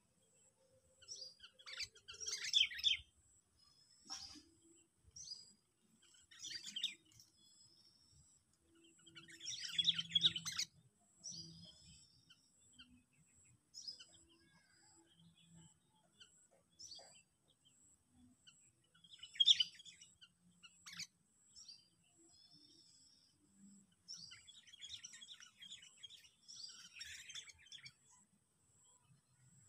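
Sooty-headed bulbul (kutilang) calling, the decoy call used to lure wild bulbuls. It comes as short, irregular bursts of scratchy, chattering notes, about ten across the half minute, the loudest near the start, around the middle, and a longer run near the end.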